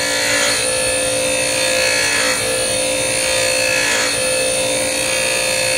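DeWalt DW758 bench grinder running with a high-speed steel lathe tool bit held against its wheel. The grinding gives a steady gritty hiss over the motor's even hum.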